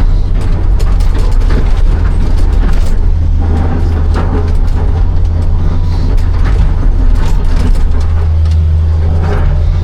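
Hitachi 260 excavator's diesel engine running steadily under load, with scattered knocks and scrapes of stone as the bucket digs and loads.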